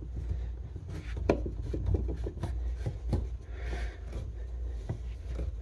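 A sink drain's slip nut being threaded on by hand onto the tailpiece: light clicks and rubbing as the nut is turned up hand tight, over a low steady hum.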